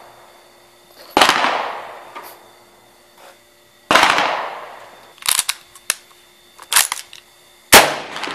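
Three rifle shots from a Swedish M96 Mauser in 6.5×55mm, about a second in, about four seconds in and near the end, each trailing off over about a second. Sharp metallic clicks between the second and third shots are the bolt being worked to chamber the next round.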